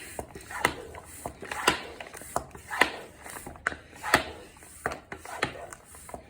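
Bicycle tire pump being worked in steady strokes, roughly one a second, inflating a mountain bike tire's new inner tube. Now and then a sharp click: the tire bead popping onto the rim as the pressure rises.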